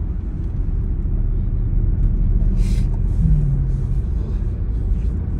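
Car driving, heard from inside the cabin: a steady low rumble of engine and tyres on the road, with a brief hiss about two and a half seconds in.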